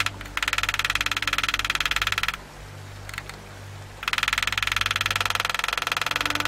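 Steel engraving graver being driven into steel plate in rapid-fire taps, about fifteen to twenty clicks a second, in two runs with a short pause between. A steady low hum runs underneath.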